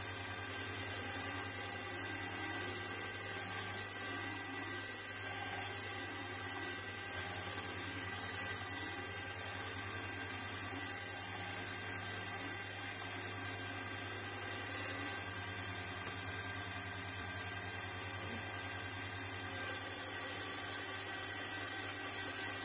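Small electric power tool running steadily during 800-grit sanding of a steel tool part, a high hiss over a low, even hum.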